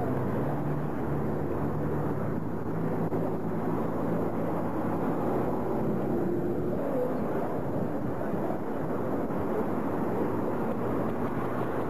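A car being driven: steady engine and road noise with a low hum.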